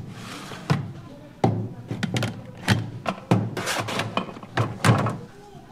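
Stainless-steel hotel pans knocking and clunking against the metal rims of a buffet steam table as they are set into place, a series of about seven uneven metal knocks, each ringing briefly.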